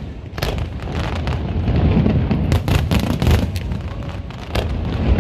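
Aerial fireworks going off: deep rolling booms with sharp cracks and pops every second or so.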